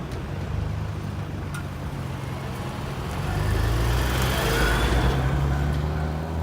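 Road vehicles running with a steady low engine hum. A vehicle passes and the sound swells from about three to five seconds in.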